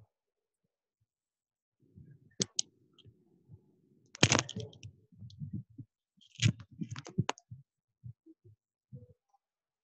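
Irregular clicks and soft knocks of a computer mouse and keyboard being worked, loudest in clusters about four and six and a half seconds in.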